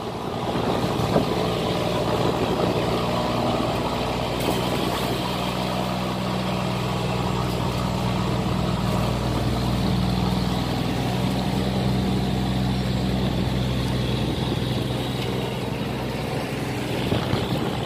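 A loaded cargo barge's diesel engine runs steadily under load as it pushes against the strong current through a sluice gate. The engine note grows stronger about four seconds in and eases again near the end.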